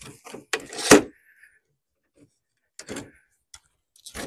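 Knocks and rattles of a folding camping table's metal legs and frame being handled and adjusted: a cluster of sharp clacks, loudest about a second in, then single knocks near three seconds and near the end, with quiet between.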